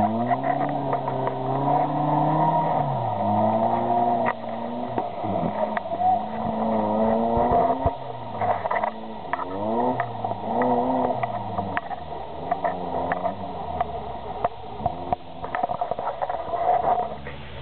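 Small Suzuki 4x4's engine revving up and down as it crawls up a muddy, rutted off-road climb, the revs rising and dropping every second or two, with scattered knocks and scrapes.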